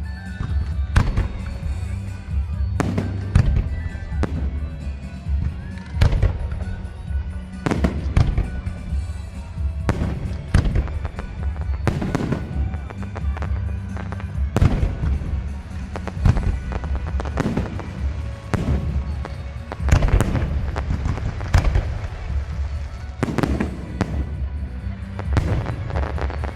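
Fireworks shells bursting in a steady barrage, a sharp bang every second or two, some of them echoing, over music playing throughout.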